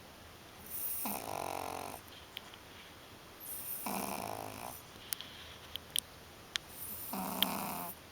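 Pug snoring in its sleep: three buzzy, rattling snores about three seconds apart, each lasting about a second, with a few faint clicks between the second and third.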